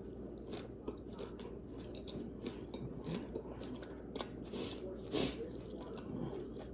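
A person chewing food, with soft wet mouth clicks and smacks.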